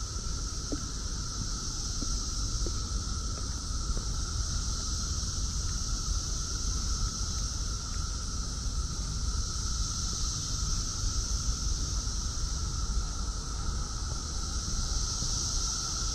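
Brood X periodical cicadas in a dense, steady chorus: a continuous high-pitched drone with a fainter, lower steady hum beneath it.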